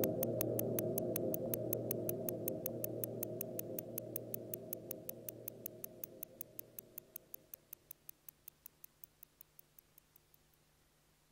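Minimal electronic music: a fast, evenly spaced train of sharp clicks over a low droning chord. The drone fades away by about eight seconds in, and the clicks fade out shortly after, leaving near silence at the end.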